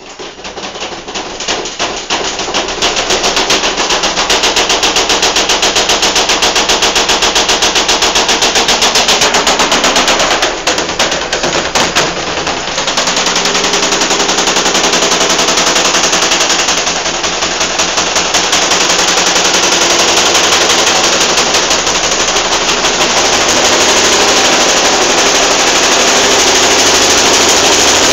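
Washing machine spinning and shaking hard, its drum and cabinet banging in a fast, loud machine-gun-like clatter that builds up over the first few seconds and then keeps going.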